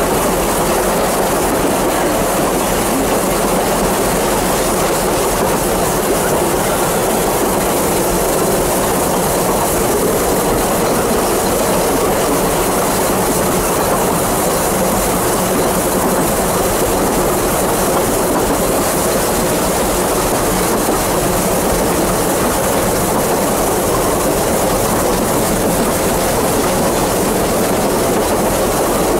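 Narrow-gauge Vale of Rheidol steam train heard from on board a moving carriage: the steady running noise of the wheels on the rails.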